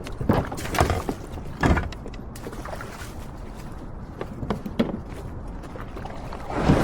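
Water splashing, with a couple of sharp knocks near the start.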